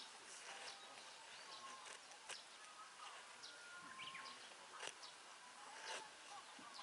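Faint outdoor ambience with scattered short bird chirps and whistles and a few sharp clicks.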